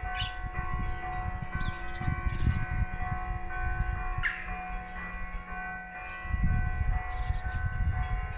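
Several church tower bells ringing, struck again and again, their tones of different pitches overlapping and ringing on. Under them is a low rumbling noise that grows louder about six seconds in.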